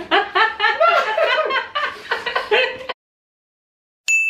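A man and woman laughing and chuckling, with a little talk mixed in, then a sudden cut to dead silence. About four seconds in, a single bright ding starts ringing.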